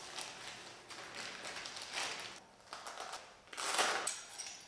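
Thin plastic bag crinkling and rustling in bursts as a tool-kit pouch is unwrapped from it and pulled out, the loudest rustle near the end.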